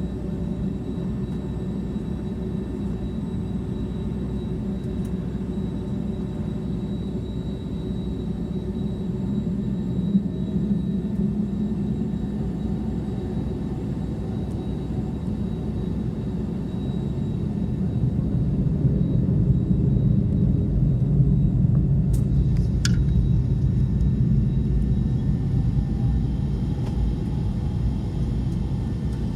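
Cabin noise of a Boeing 757-200 airliner: a steady jet-engine and airframe rumble with faint steady whines above it, growing louder about seventeen seconds in.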